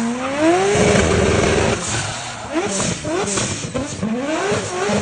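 Racing car engine revving hard. Its pitch climbs steeply in the first second, then comes a quick run of short rising revs in the middle, settling to a steady note near the end.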